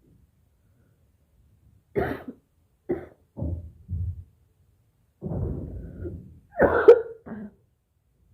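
A woman coughing up thick phlegm: four short coughs, then a longer rasping throat-clear, then a loud cough near the end. The throat is congested with phlegm and slowly clearing.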